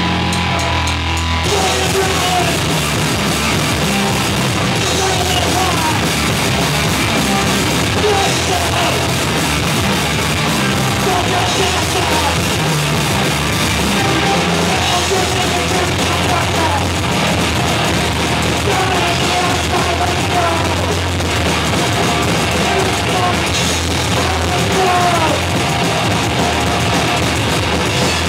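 Loud, heavy rock band playing live: drum kit, bass guitar and distorted electric guitar. After held notes, the full band comes in about a second and a half in and plays on without a break.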